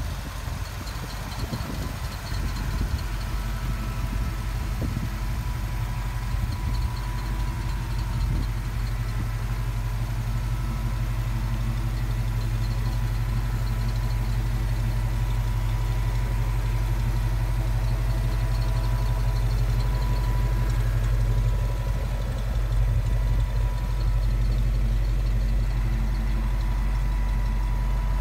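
1978 Ford F-150 pickup's engine idling steadily, growing a little louder over the first several seconds and then holding even.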